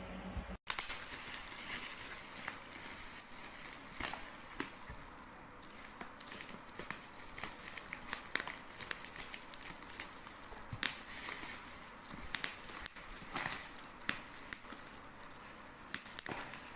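Crinkling and rustling handling noise with many irregular sharp clicks.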